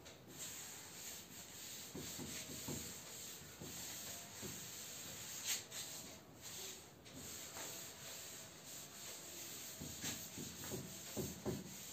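Felt chalkboard duster wiping chalk writing off a blackboard: faint, irregular rubbing strokes.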